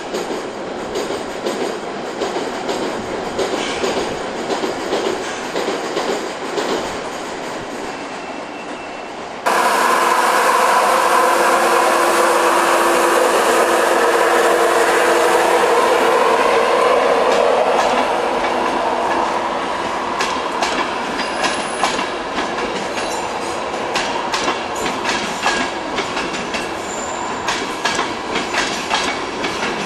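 A Class 66 diesel locomotive running past on the main line. About a third of the way in, the sound cuts abruptly to a louder train with a steady whine, which fades after several seconds into rapid clicking and clattering of wheels over points.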